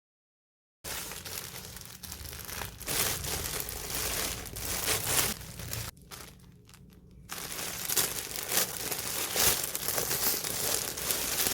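Plastic packaging crinkling and rustling as a parcel is handled and opened. It starts about a second in, eases off briefly around the middle, then carries on.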